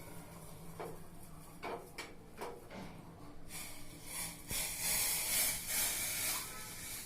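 A few light knocks of a cooking vessel, then about three seconds of hissing from a pan of freshly boiled kashayam (herbal decoction) just taken off the flame.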